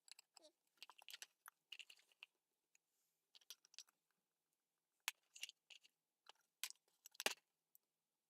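Faint handling noises from hands-on work with parts and tools: scattered light clicks and scrapes, with one sharper knock about seven seconds in.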